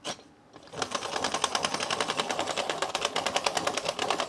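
Hand-crank pencil sharpener being cranked: one click at the start, then from about a second in a fast, steady run of clicks from the turning mechanism as it sharpens the pencil.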